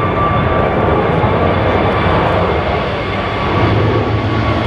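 Jet engines of an Airbus A320neo airliner running, a steady whine over a low rumble, with strong wind buffeting the microphone.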